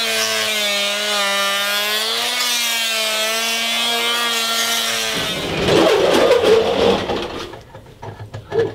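Corded oscillating multi-tool buzzing steadily against a concrete floor, its pitch wavering slightly as it scrapes off tile adhesive. About five seconds in the buzz stops abruptly and a louder, rough noise follows for a couple of seconds, then a few scattered knocks.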